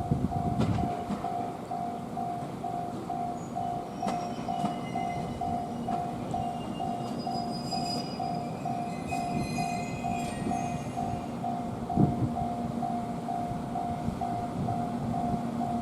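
Japanese level crossing warning bell ringing, one even ding about two and a half times a second. Under it a train rolls through the depot tracks, with a low hum, a few clicks and scattered high squeals in the middle.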